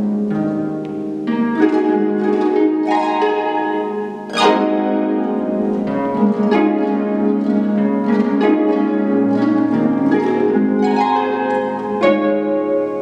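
Concert pedal harp played solo: plucked notes and chords ringing into one another, with a loud, bright chord struck about four seconds in.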